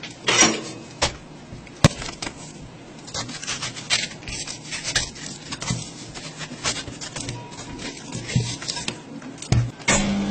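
Metal spatula chopping a watermelon slice on the steel cold plate of a rolled-ice-cream pan: irregular sharp clicks and taps as the blade strikes through the fruit onto the metal. Near the end, milk is poured onto the plate and a steadier sound takes over.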